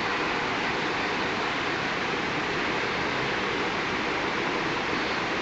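Steady roar of city street traffic, an even wash of noise with no single sound standing out.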